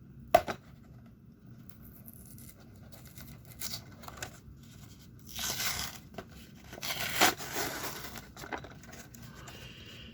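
Toy packaging being torn open by hand: a sharp click just after the start, then several bursts of ripping and crinkling, the longest and loudest between about five and eight seconds in.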